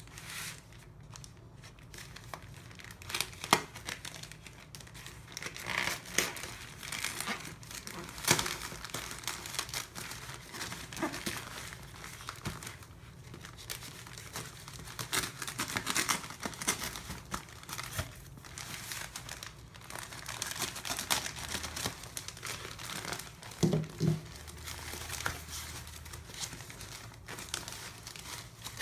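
Plastic poly-mailer bag and its packing tape crinkling and tearing as the parcel is handled and cut open with scissors, with foam padding rustling as it is pulled out. Irregular rustles with a few sharper cracks.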